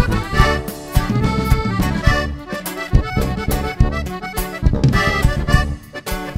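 Norteño band music: an instrumental passage with the accordion carrying the melody over a strong bass line, with no singing.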